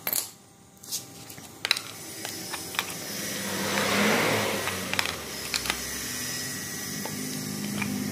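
Light clicks and knocks of tool and machine parts being handled, then an engine running that swells up about three to four seconds in and holds steady.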